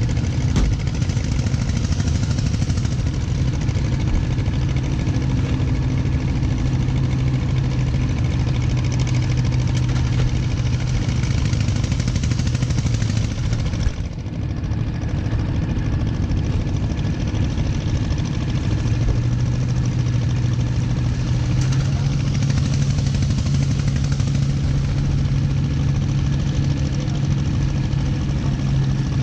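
A boat's engine running steadily beneath the listener, with a strong low engine note and a steady hiss above it. The level dips briefly about halfway through, and the engine note shifts slightly higher about three quarters of the way in.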